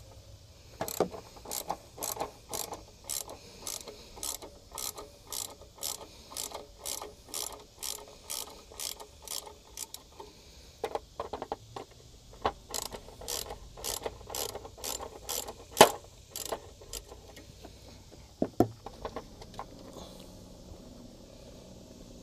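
Socket ratchet wrench clicking in a steady run, about two to three clicks a second, as it backs out 10 mm bolts. The clicking pauses about ten seconds in, starts again with one louder click among them, and dies out a few seconds before the end.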